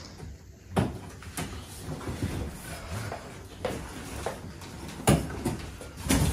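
Large cardboard box being pulled open by hand: stiff cardboard flaps scraping and flexing, with a few sharp knocks, the loudest about five seconds in.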